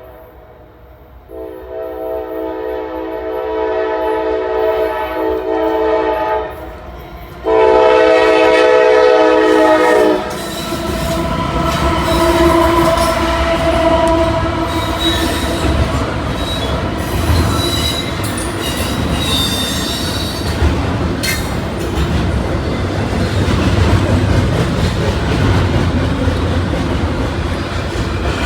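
Norfolk Southern locomotive air horn sounding two long chord blasts, the second louder. Then the train rolls past with a steady rumble, clicking wheels and high wheel squeal.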